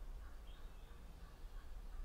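Quiet spring woodland: faint distant bird calls, a thin high chirp about half a second in and a soft series of short notes, over a low rumble.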